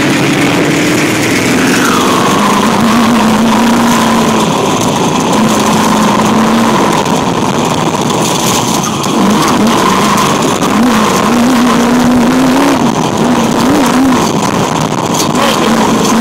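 Sand rail dune buggy engine running hard at speed, its pitch wavering up and down with the throttle, under a loud rush of wind and ride noise. A few sharp knocks come in the second half as the buggy goes over rough ground.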